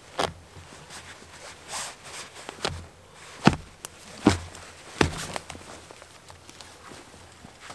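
A thin tree root being pulled up by hand out of the soil and forest litter, tearing free with a rustle of earth and about five sharp snaps spaced irregularly.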